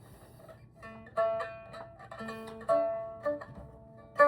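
Biwa, a Japanese lute, played as a slow run of single plucked notes. Each note starts sharply and dies away, and the instrument has just been tuned.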